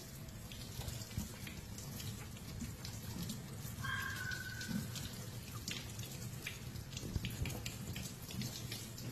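Kitchen faucet running, the stream splashing over cupped hands and pattering into a stainless steel sink. A brief high squeak sounds about four seconds in.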